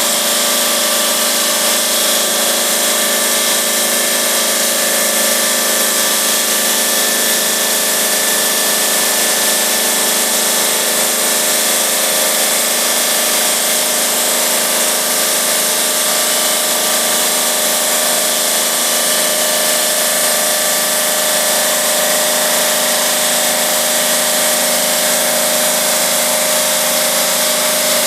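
GMM Brio Easy CNC bridge saw cutting 4 cm granite: its diamond blade runs steadily under load, a constant whine with one strong steady tone over an even rushing noise.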